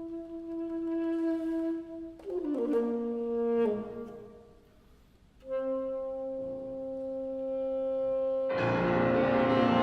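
Alto saxophone playing a held note, then a quick falling run of notes that dies away to a brief hush. It then sets in on a long held higher note, and the piano comes in loudly underneath near the end.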